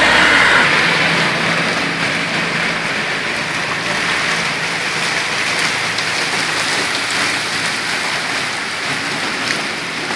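Heavy rain falling steadily on a flooded street and pooled water, an even hiss. In the first second a vehicle's tyres swish through the water, fading away.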